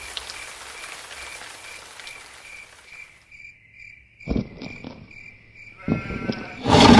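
Insects chirping, a steady pulse about three times a second with a second, higher chirp joining about halfway. A few sharp thumps near the end.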